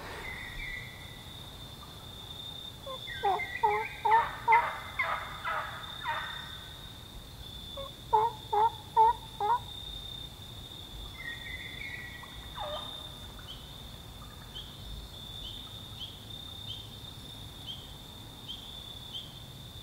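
Wild turkeys calling in two runs of short, evenly spaced notes: about seven notes a few seconds in, then four more about eight seconds in. A steady high thin tone runs underneath.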